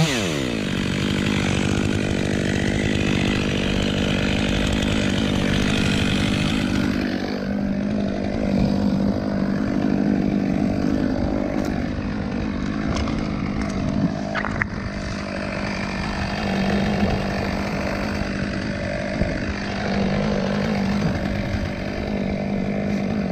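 Two-stroke chainsaw held at a steady high engine speed, cutting wood. About seven seconds in, the cutting hiss drops away and leaves the engine note, with a few short sharp snaps around the middle.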